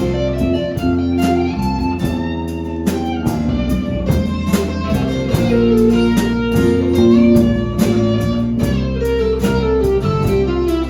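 Instrumental break of a country song: a guitar solo over bass and a steady drum beat.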